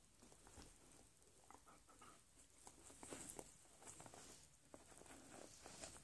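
Near silence with faint rustling, small clicks and scratches from a rainbow lorikeet moving about on bedding.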